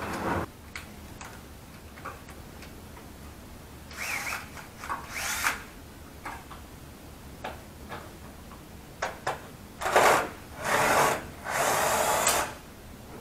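Cordless drill-driver run in short bursts, its motor spinning up with a rising whine, while screws are backed out of aluminium glass-partition framing. Two brief bursts come about four and five seconds in, then three longer runs close together near the end, with a few light knocks between.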